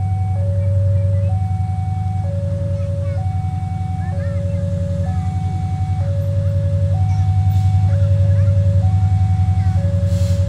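Railway level-crossing warning alarm sounding, a two-tone electronic signal alternating between a higher and a lower pitch about once a second. Under it runs a steady, deep engine-like rumble that grows slightly louder near the end.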